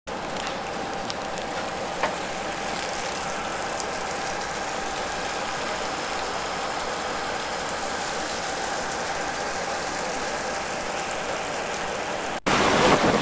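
Steady, even hiss with a faint hum running through it, cut off abruptly near the end.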